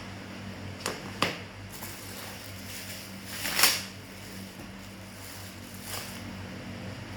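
Handling noises while unboxing: two sharp clicks about a second in, then a brief rustle or scrape about halfway, and a fainter one near the end, over a steady low hum.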